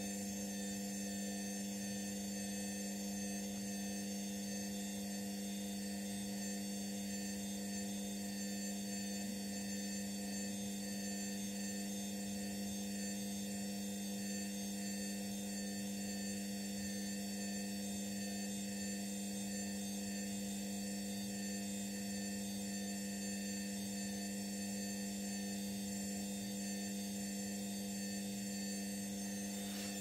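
Indesit Innex washing machine running with a steady, unchanging electric hum.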